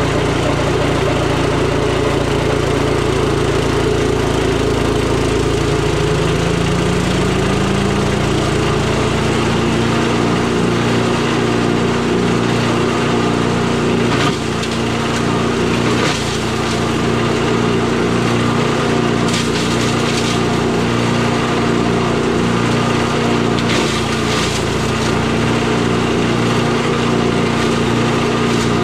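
8 hp Briggs and Stratton single-cylinder engine of a chipper shredder running steadily after a carburetor cleaning, its pitch rising a few seconds in as it speeds up and then holding at the higher speed. A few short cracking noises come in the middle.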